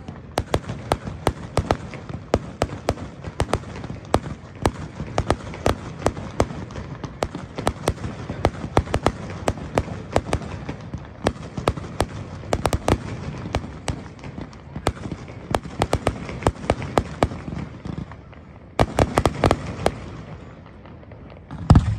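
Fireworks display: a steady run of sharp bangs and crackles from bursting shells, several a second. A louder, tightly packed volley comes near the end, followed by one deep boom.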